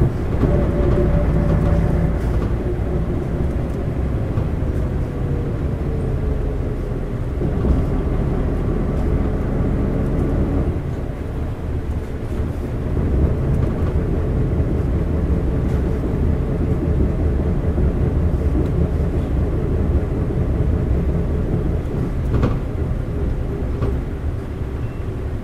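Isuzu LV city bus's 8PE1-N V8 diesel engine running under way, heard from inside the cabin with road noise. A thin whining tone over the engine falls slowly in pitch over the first several seconds, and the level dips briefly about eleven seconds in.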